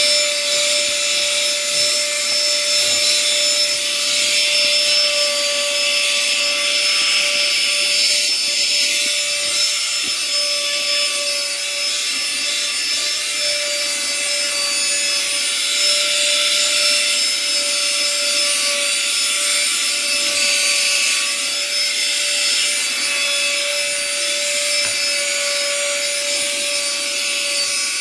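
Nexpow AKB-Z800 cordless handheld car vacuum running steadily with its crevice tool on fabric car seats: a constant motor tone over a rushing hiss of air.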